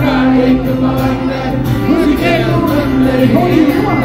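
Live amplified music: a man singing with an acoustic guitar and sustained low backing tones, played loud through concert stage speakers.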